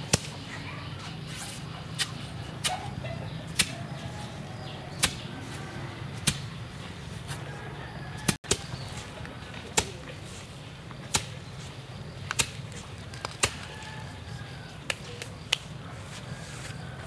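Sharp, short knocks, one every second or so at an uneven pace, as a bamboo pole is rammed down into sandy ground to set it as an upright post.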